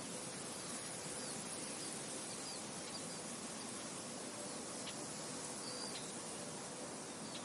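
Steady wind hiss with a few short, high bird chirps and faint ticks scattered through it.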